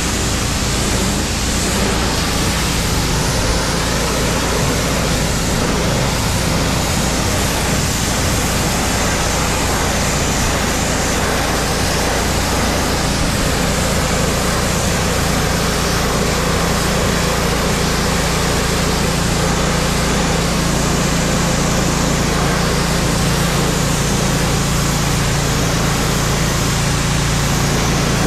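Pressure washer running steadily, its jet spraying the soffit and gutters: an unbroken hiss of water over a low machine hum.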